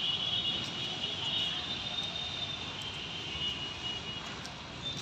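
Outdoor city ambience: a steady high buzz that wavers in level, over a low rumble of distant traffic.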